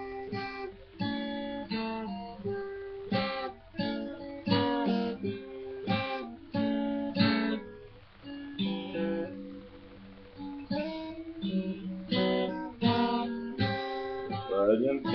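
Acoustic guitar in an unconventional open-style tuning, strummed chords ringing out one after another, a little softer about halfway through.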